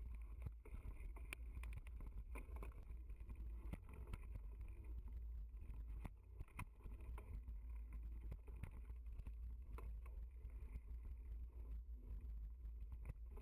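Mountain bike riding over a dirt trail, heard through the bike-mounted camera: a steady low wind rumble on the microphone with scattered clicks and rattles from the bike and camera mount over the rough ground.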